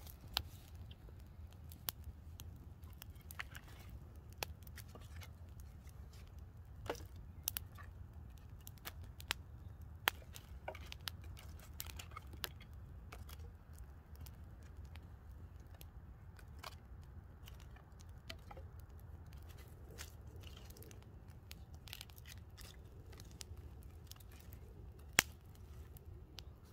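Small twig campfire crackling with irregular sharp pops and snaps, while dry sticks are knocked and leaned onto the burning kindling teepee. A loud single snap comes near the end, over a low steady rumble.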